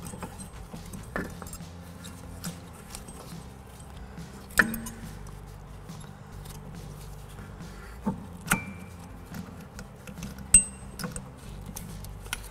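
Metal clicks and clinks as a rear brake pad and caliper are handled and the pad's ears are worked into line with the caliper piston: a few sharp knocks at irregular intervals, the loudest about a third of the way in.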